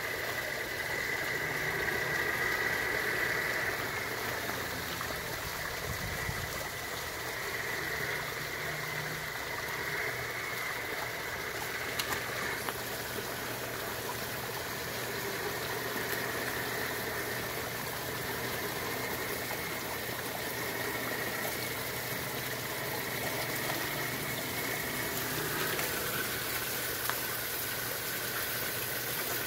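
Radio-controlled truck's drive running with a whine that shifts in pitch as it crawls, over a steady rush of running water.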